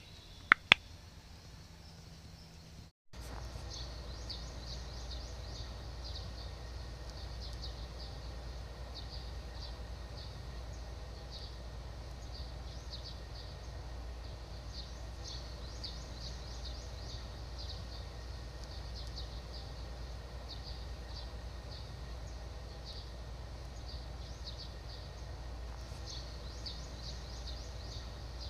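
Outdoor ambience: a steady low rumble with rapid, high-pitched chirping in short repeated trills, which starts after a brief dropout about three seconds in. Two sharp clicks sound just before the dropout.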